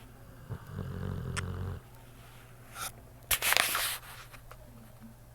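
A sleeping pit bull snoring: one low, drawn-out snore lasting just over a second, starting about half a second in. About three and a half seconds in comes a louder, short rush of noise.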